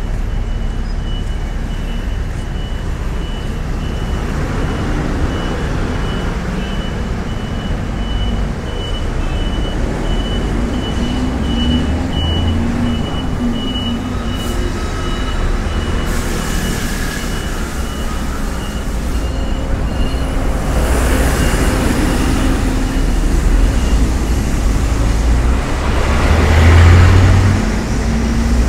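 City street traffic: a steady low rumble of engines, with several vehicles passing close by in the second half, the loudest near the end. A high, evenly pulsed electronic beeping runs through the first half and stops about halfway.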